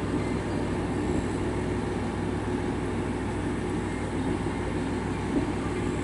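Diesel railcar of the Ametsuchi tourist train (a converted KiHa 47) approaching from a distance: a steady low rumble that holds an even level.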